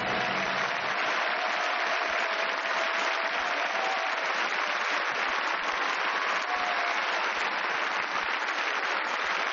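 Studio audience applauding, dense and steady.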